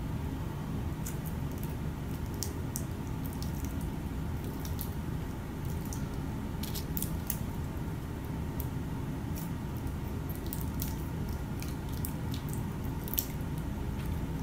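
A steady low background rumble of room noise, with scattered faint high clicks and ticks throughout and one sharper click near the end.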